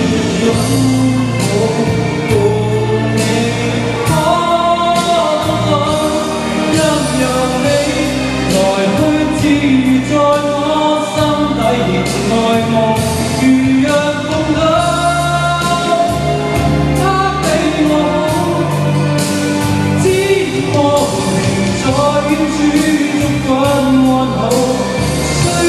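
A man singing a song into a handheld microphone over backing music with a steady beat.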